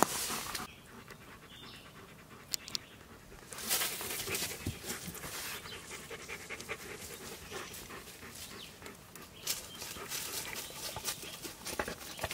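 Dogs panting close by, a German Shepherd and a Rottweiler, with quick rough breaths. Quieter for the first few seconds, then steady from about four seconds in.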